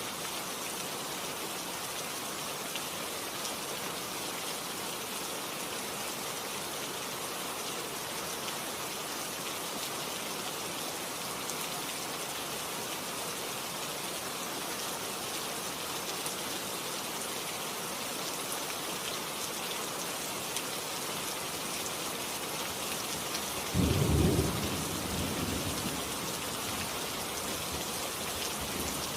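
Steady rain falling, with a single clap of thunder near the end that breaks out suddenly and rumbles away over about two seconds.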